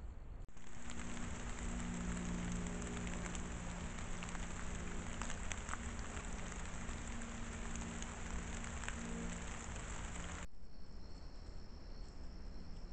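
Steady hiss of rain falling through the forest with scattered drips, over a low steady drone. About ten seconds in it cuts off abruptly, and a steady trill of crickets takes over.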